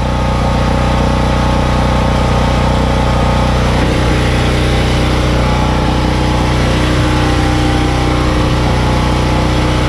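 An engine running steadily at idle, a constant low drone with an even hum.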